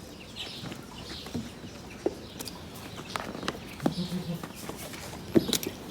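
Barn animal sounds: scattered knocks and clicks, with one short, low animal call about four seconds in.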